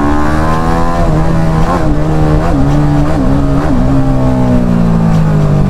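Single-cylinder sport motorcycle engine running hard under way, with about four quick throttle blips a couple of seconds in, then its pitch slowly falling as it eases off. It is being revved to draw reactions from onlookers.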